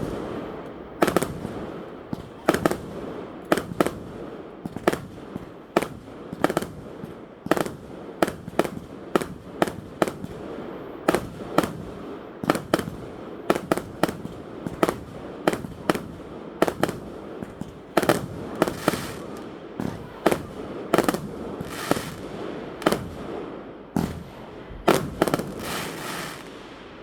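Aerial fireworks shells bursting in quick succession, sharp bangs about one to two a second, each followed by a rolling echo, with denser volleys twice in the second half.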